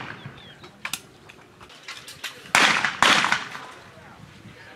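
Two shotgun shots about half a second apart, a double fired at a clay target, each ringing out briefly. A few fainter sharp cracks come about a second in.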